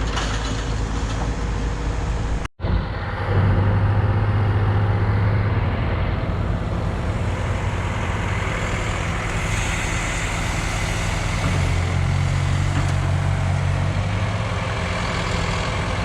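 Heavy diesel machinery engine running, growing louder and heavier twice as it takes load. The sound cuts out for a moment about two and a half seconds in.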